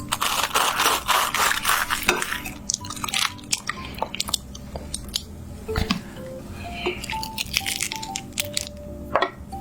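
Utensils clicking and scraping against dishes while food is handled, with a stretch of dense rustling-scraping in the first two seconds. Light background music with single held notes plays underneath.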